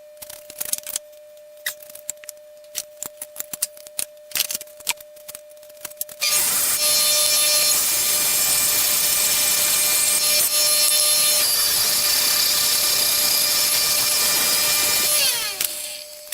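Clicks and taps of copper fittings being handled, then an electric power tool running with a loud rubbing, grinding noise for about nine seconds as copper fittings are cleaned before soldering. The motor then spins down, its pitch falling away.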